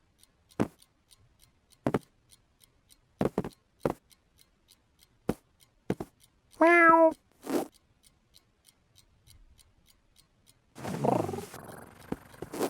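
Cartoon sound effects: a scattered series of sharp taps and thumps, a short pitched cry about seven seconds in, and a longer voiced sound near the end, over faint regular ticking.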